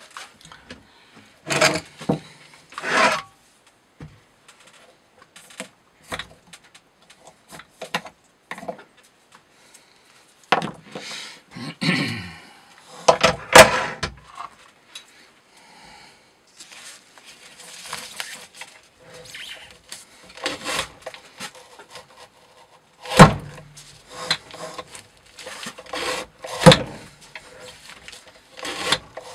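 Irregular knocks, clunks and rubbing as metal weight plates are lifted off and set onto the wooden loading carriage of a knife rope-cutting test rig, changing the load to 20 newtons. A few sharper knocks stand out among the handling noise.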